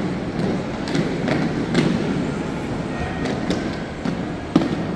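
Roller skate wheels rumbling across a rink floor, with sharp knocks and clacks every second or so, the loudest near the end, amid background chatter.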